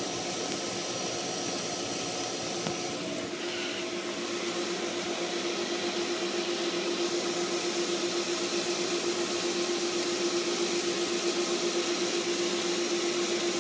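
Pool pump running with a steady hum and hiss, pushing water at about 20 PSI through the reconnected heat exchanger. The hum grows a little louder about four seconds in.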